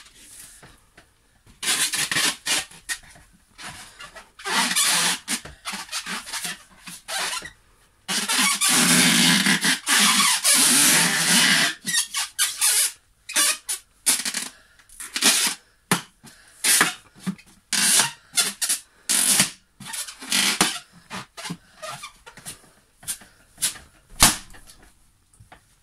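Inflated latex balloon squeaking and rubbing as a person sits and shifts his weight on it on a wooden stool, in irregular bursts, a few drawn out for several seconds and many short ones later. A single sharp knock near the end.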